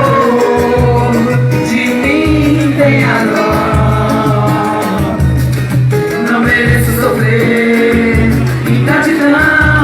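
Music: a Latin-style song with a pulsing bass beat and a melody line that rises and falls above it.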